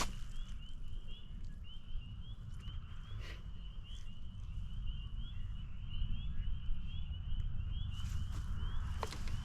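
Spring peepers calling: a steady chorus of short, rising peeps, about two to three a second, over a constant low rumble.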